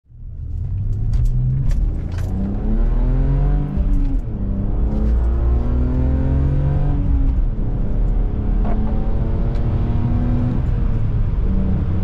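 BMW E46 325Ci's inline-six heard from inside the cabin, accelerating through the gears: the engine note climbs and drops back at each upshift, about four, seven and ten seconds in, then holds steady. The exhaust headers have just been welded to cure a leak, and the speaker says it sounds exactly as clean headers should.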